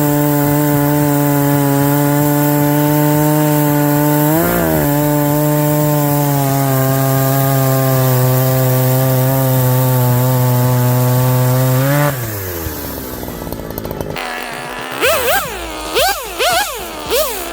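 Oregon CS1500 electric chainsaw running at a steady high pitch, with a brief dip and wobble about four seconds in, then winding down about twelve seconds in. Near the end come several short bursts that rise and fall in pitch.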